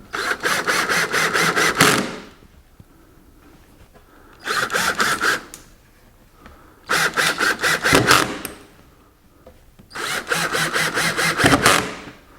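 Power drill driving screws through a cabinet side panel into the top and bottom pieces. There are four separate runs of one to two seconds each, each with a pulsing, ratcheting rhythm.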